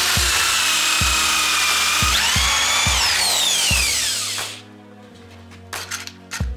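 Electric drill in a drill stand cutting a round hole through a wooden board with a hole cutter, running with a loud whine that shifts in pitch under load. It is switched off about four seconds in and winds down, followed by a few light clicks. Background music with a steady beat runs underneath.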